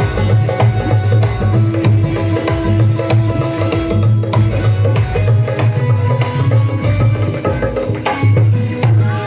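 Loud dance music with a steady drum beat and a heavy pulsing bass line under a melody.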